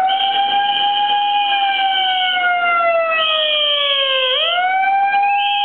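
Megaphone siren wailing: one tone sinking slowly for about four seconds, then sweeping sharply back up and starting to sink again, with a higher steady tone coming and going above it.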